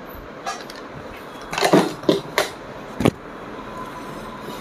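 Metal clinks and knocks, about five sharp ones in the first three seconds, as the hand-crank attachment is taken off an old Pfaff sewing machine.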